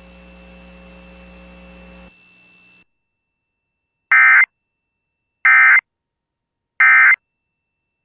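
Emergency Alert System end-of-message data bursts: three short, identical, raspy digital warbles about a second and a half apart, the SAME 'NNNN' code that marks the end of the alert. Before them, a faint steady hum for about two seconds after the alert voice cuts off.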